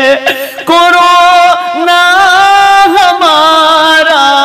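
A solo male voice singing an Urdu naat, drawing out long ornamented notes with wavering, bending pitch after a short breath about half a second in.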